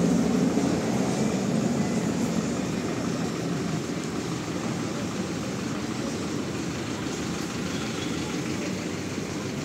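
Steady rumble of passing motor traffic, loudest at the start and easing off over the first few seconds, then a level traffic din.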